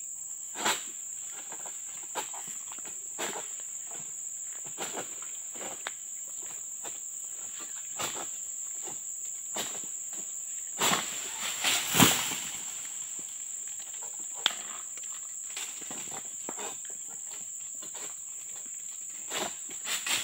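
Steady high-pitched insect drone, with scattered short knocks and rustles over it; the loudest knock comes about twelve seconds in, and a few more come near the end.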